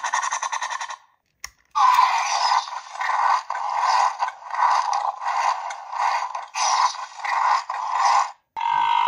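Electronic dinosaur sound effects from a toy figure's small speaker. First comes a short fast rattle, then a click about a second and a half in. After that a run of about ten short calls, repeated evenly, and a held tone near the end.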